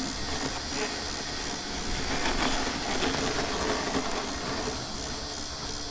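Mammotion Yuka 2000 robotic lawnmower running as it mows, a steady mechanical whir with a faint low hum.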